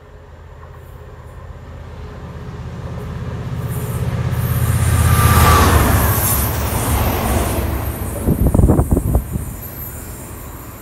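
A convoy of diesel locomotives led by Class 67s, with their two-stroke V12 engines, passing at speed. The low engine drone and the rush of wheels and air build to a peak about five seconds in and then fade, with a quick run of loud thumps near the end.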